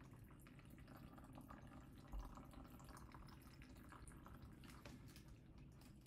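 Faint, slow dripping of strained pruno running from a squeezed cloth into a plastic bag, with a single low thump about two seconds in.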